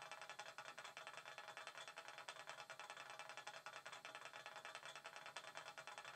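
Bachmann Class 66 model locomotive's DCC sound decoder faintly playing a diesel idle through its small ESU speaker. It is a steady, fine ticking rumble with no change.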